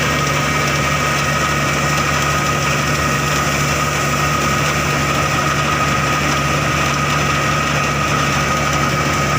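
Claas Crop Tiger 40 combine harvester running steadily, a constant engine note with a steady high whine on top.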